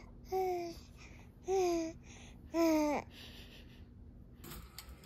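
Baby babbling and cooing happily: three short, high-pitched coos about a second apart, the last one sliding down in pitch.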